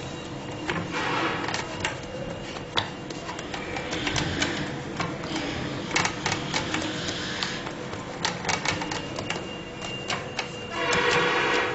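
Fingertips pressing and dimpling soft sheermal dough on an aluminium baking tray: irregular light clicks and taps of fingers and rings on the metal tray, with a louder rush of noise near the end.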